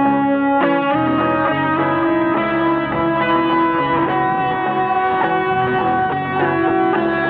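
Instrumental music: dense, sustained layered chords that shift to new notes every second or so.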